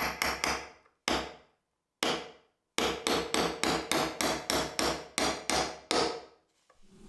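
Small hammer tapping a nail set to drive tiny nails through a brass label holder into a wooden drawer front. A few separate taps come first, then a steady run of about three taps a second for a few seconds.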